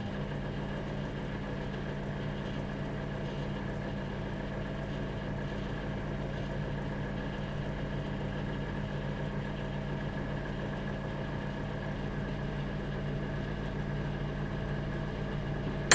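Microwave oven running while it cooks: a steady, even hum with a low drone that does not change.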